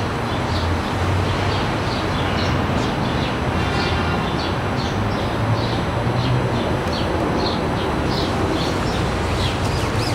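Birds chirping in quick repeated calls, a few a second, over a steady background rumble.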